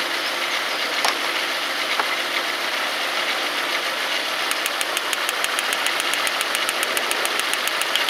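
Volkswagen 2.3 V5 petrol engine idling with a misfire while one ignition lead is off the coil pack; it runs slightly rougher with that cylinder cut, showing that cylinder is still firing. A rapid, even ticking joins the engine about halfway through.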